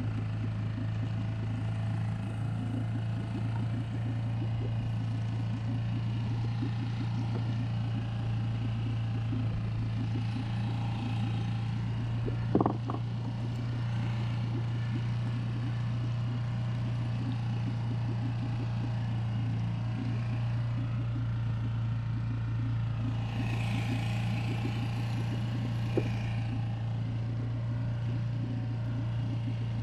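Small Honda four-stroke outboard motor running steadily at slow trolling speed. A single sharp knock comes about halfway through, and a brief hiss follows a little before the end.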